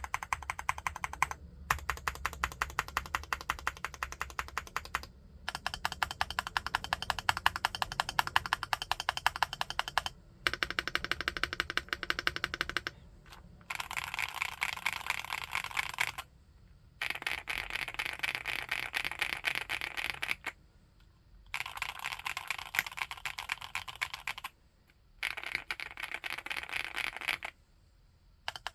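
Fast typing on a 75% mechanical keyboard, in runs of a few seconds separated by short pauses. The first runs sound deeper, the later ones brighter and higher-pitched.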